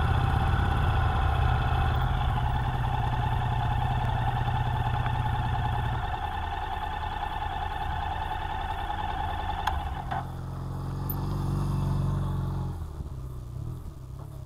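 Motorcycle engine running at low speed with a steady whine, cut off suddenly after a click about ten seconds in. Another motorcycle's engine then grows louder as it pulls up and drops away near the end.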